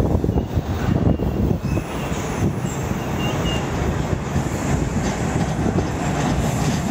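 MBTA Orange Line subway train pulling into the station, its wheels rumbling on the rails as it comes alongside the platform, with a couple of brief high squeals partway through.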